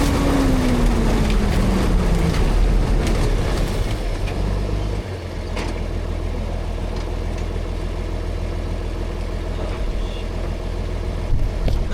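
Farm tractor engine running steadily, with a whine falling in pitch over the first two seconds; about five seconds in the engine note drops and settles into an even run.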